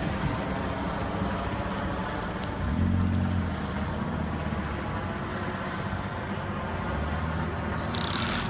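Engine drone of a low-flying aircraft passing overhead, steady with a brief swell about three seconds in.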